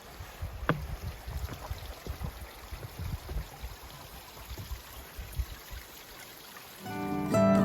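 Running stream water, with a few low knocks and clicks. Acoustic guitar music comes in near the end.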